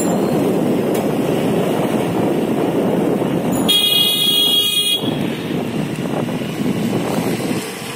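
Steady road and wind noise of moving along a street. Near the middle, a vehicle horn sounds once, held for a little over a second.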